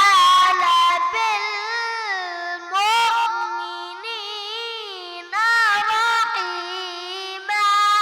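A young boy's voice chanting Quranic recitation in melodic tajweed style, holding long ornamented notes that waver up and down. New phrases begin about three seconds in, about five seconds in and near the end.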